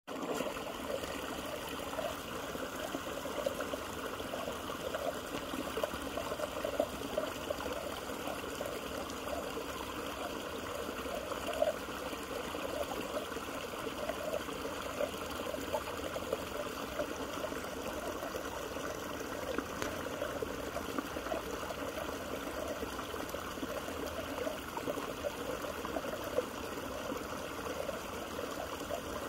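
Steady trickle of running creek water.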